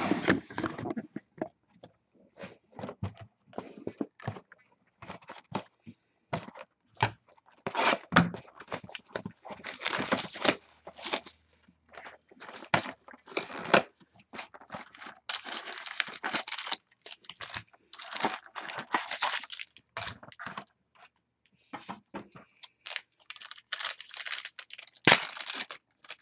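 Football trading-card box being opened by hand: irregular tearing, crinkling and scraping of cardboard and wrapping.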